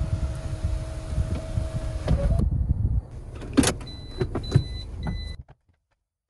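Car's electric sunroof motor whining steadily as the sunroof closes, stopping with a small clunk about two seconds in. Then come clicks from the automatic gear selector being moved and a few short high beeps from the car, before the sound cuts off suddenly.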